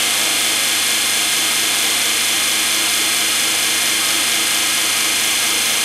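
A large house-fan blade spinning at speed on a DC-powered electric motor: a steady, loud rush of air over the motor's hum, with no change in speed.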